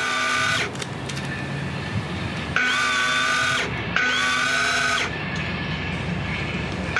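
Electric motor of a Daiwa Tanacom 1000 electric fishing reel whining in short bursts of about a second, each rising in pitch as it spins up and then stopping abruptly. The reel's automatic jigging function is winding in line in jig strokes with pauses between them.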